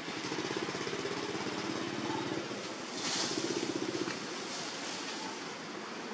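A motor engine running steadily in the background with a fast, even pulse, and a brief burst of hiss about three seconds in.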